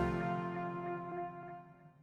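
Ringtone music ending: the last chord's steady tones ring on and fade away.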